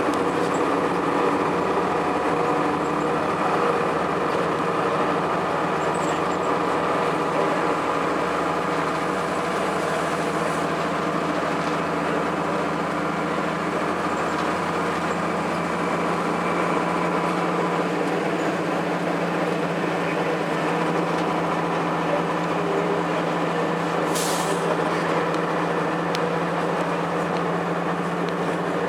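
2002 Blue Bird CS school bus under way, its Cummins ISC inline-six diesel and Allison automatic transmission giving a steady drone whose pitch shifts partway through. There is a short hiss of air near the end.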